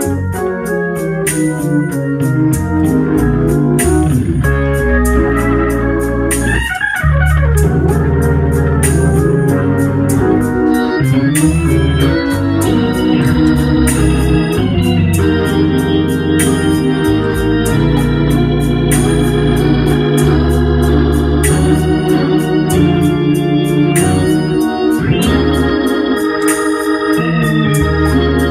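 Hammond organ playing slow, sustained chords over a deep bass line, with a crisp attack on each new chord. A quick run rises up the keyboard about seven seconds in.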